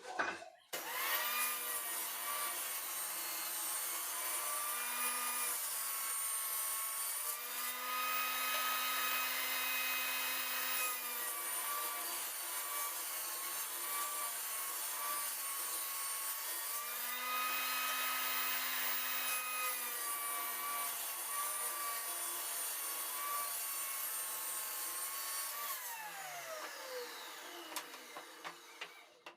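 Electric power saw switched on and running steadily, its whine rising in load twice as it cuts through wood, then switched off and winding down with a falling pitch near the end.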